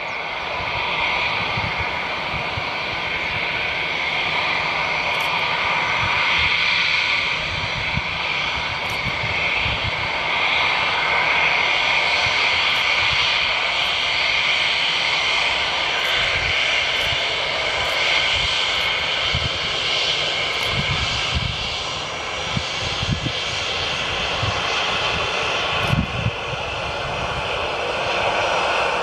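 Jet airliner's turbofan engines running with a steady, loud hiss, over an uneven low rumble.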